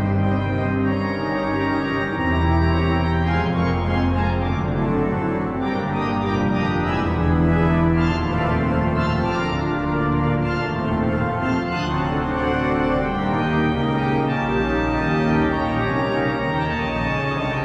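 Organ music accompaniment playing held chords over deep bass notes that change every second or two.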